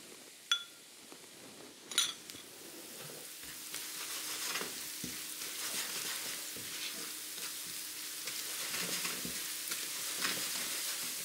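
Chopped shallots and sugar frying in olive oil in a pan, sizzling while they are stirred, with scraping strokes against the pan. There are two sharp clinks about half a second and two seconds in, and from about three and a half seconds the sizzling and stirring grow louder.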